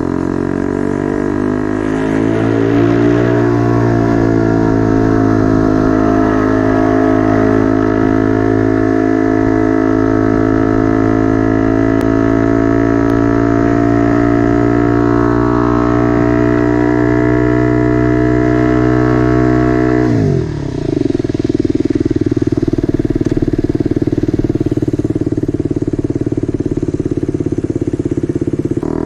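Motorcycle engine running through a temporary exhaust during a ride, revving up over the first few seconds and then holding a steady drone at constant revs. About twenty seconds in, the revs drop sharply and the engine settles into a lower steady drone.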